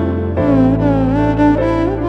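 Background music: a slow melody that slides between notes over held low bass notes, the bass changing about half a second in.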